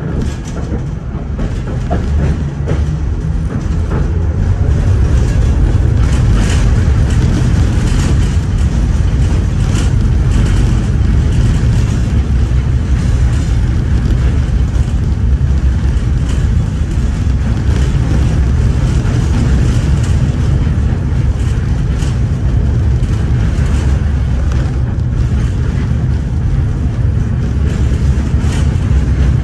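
LVS-86K tram running along the rails, heard from inside the car: a steady low rumble that builds over the first few seconds as it picks up speed, with faint clicks from the wheels over the track.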